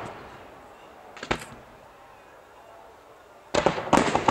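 Aerial fireworks: a short cluster of cracks about a second in, then two louder volleys of bangs and crackling near the end, each trailing off in echo.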